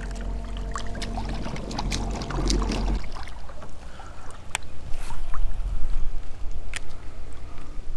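Fishing kayak moving on the water: a low hum and water noise for about the first three seconds, then scattered sharp clicks and knocks against the hull and gear.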